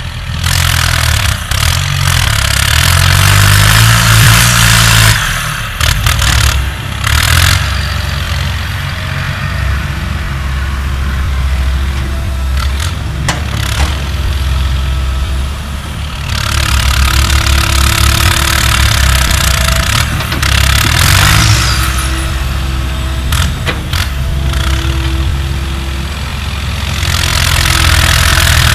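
Diesel engine of an earthmoving machine running under working load. It surges loudly at the start, again in the middle and near the end, with faint whining tones coming and going.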